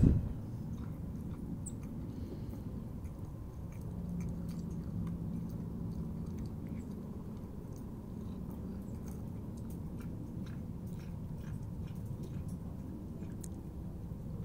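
Cat eating wet cat food, chewing with a run of small, soft wet clicks. A single brief thump right at the start.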